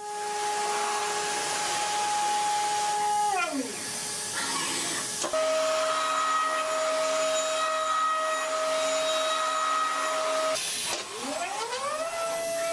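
CNC milling machine spindle whining at a steady pitch over a hiss of cutting noise. About three and a half seconds in the whine winds down, and near the end it drops and then spins back up to a steady pitch.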